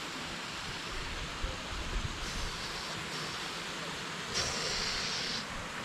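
Steady rushing of a waterfall splashing down into a pool, with a brief sharper hiss over it about four and a half seconds in.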